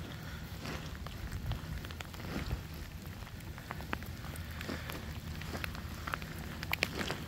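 Freezing rain falling on an ice-glazed driveway: a steady hiss dotted with many small, sharp ticks.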